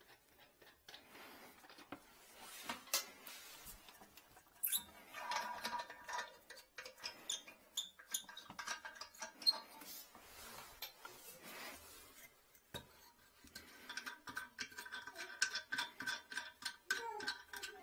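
Quiet handling noises at a porcelain toilet and its seat: scattered clicks and taps, with stretches of high squeaking about five seconds in and again from about fourteen seconds on.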